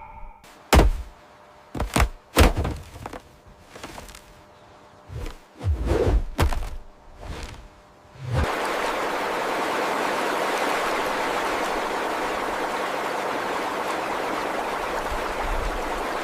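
Several dull thuds in the first half, some in quick pairs, then about eight seconds in a steady rushing noise sets in and holds.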